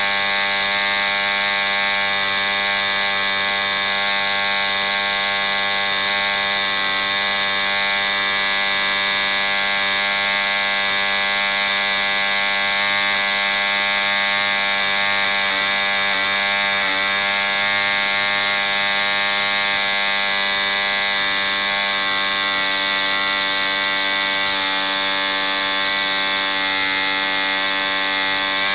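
ED Hunter 3.46 cc two-stroke model diesel engine on a bench test stand, running steadily at about 6,000 rpm and turning an 11x6 Top Flite wooden propeller. The pitch wavers slightly about halfway through.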